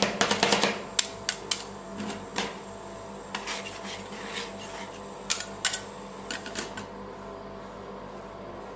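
Metal spatula blades chopping avocado on the steel cold pan of a rolled-ice-cream station: a fast run of sharp taps that stops within the first second. Then scattered taps and short scrapes as the mashed avocado is pushed into a pile, which die away about two seconds before the end, over a faint steady hum.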